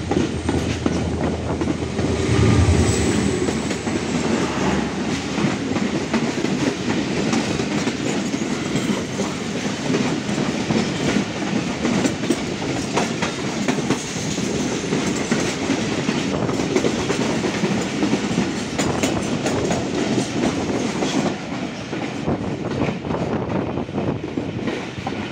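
Two passenger trains passing each other on adjacent tracks, heard from an open coach doorway: the oncoming diesel locomotive's engine hums loudest about two to three seconds in, then its coaches rush past with a steady clickety-clack of wheels over rail joints.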